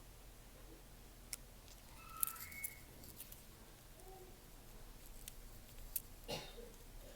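Faint, scattered clicks and taps of small repair tools on phone parts during a screen replacement. About two seconds in there is a short, high, whistle-like tone that steps up in pitch.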